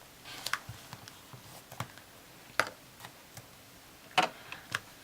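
A handful of sharp clicks and taps from small hard objects being handled and set down on a tabletop, the loudest about two and a half and four seconds in.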